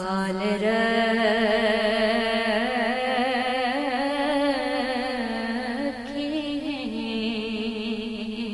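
A woman's voice singing a naat: one long drawn-out wordless note with a wavering pitch that rises and falls, stepping up again near the end.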